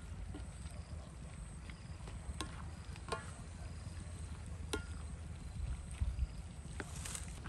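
Metal spatula stirring food in a steel wok, clinking and scraping against the pan a few times, over a steady low rumble.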